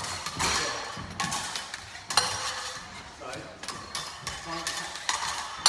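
Steel rapier and dagger blades striking together in quick, irregular clinks, several of them ringing briefly, as the blades meet and bind.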